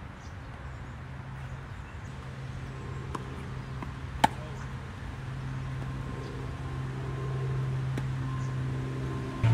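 A tennis racket strikes the ball on a hard flat serve, one sharp crack about four seconds in. Fainter taps come before it, and a distant racket hit comes near the end. Under it all runs a steady low engine hum that slowly grows louder.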